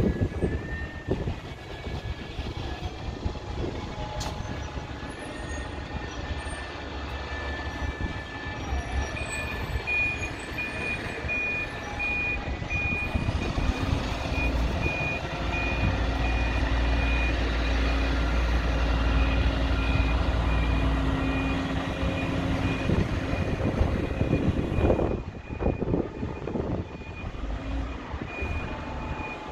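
A bus reversing with its reversing alarm beeping over and over in a high tone, starting about a third of the way in. The engine runs throughout and grows louder and deeper through the middle.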